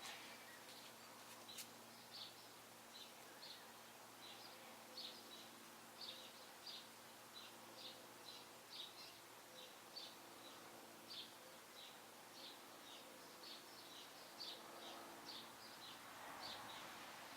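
Faint, short high chirps repeating about twice a second, over a low steady hum.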